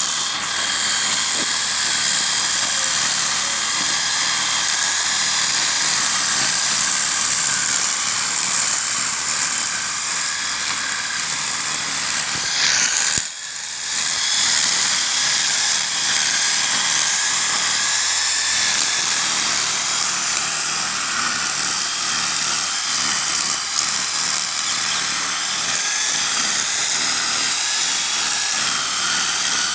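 Electric drill with a grass-cutting attachment spinning at high speed, a steady high-pitched motor whine with the whir of the cutter through grass. About halfway through it revs up, cuts out for a moment and spins back up.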